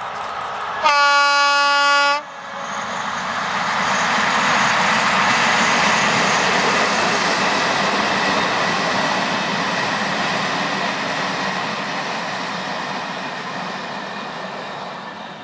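A locomotive sounds its horn in one steady blast of about a second and a half as it approaches. The locomotive and its passenger coaches then pass close by, the wheels clattering on the rails, loudest a few seconds in, then slowly fading as the last coaches go by.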